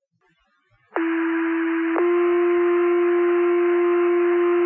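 Fire dispatch two-tone sequential paging tones over the radio: the alert that sets off the volunteer firefighters' pagers before a dispatch. The first steady tone starts about a second in and lasts about a second. It then switches to a second steady tone that is held for about three seconds.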